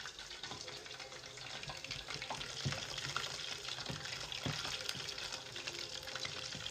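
Battered chicken pieces deep-frying in hot oil: a steady crackling sizzle, with a few light knocks about midway.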